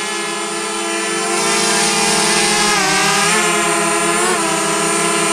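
DJI Mavic Mini quadcopter's propellers buzzing close by, a steady hum of several pitches. It grows louder about a second and a half in, and the pitch dips and rises again near three and four seconds in as the drone changes speed.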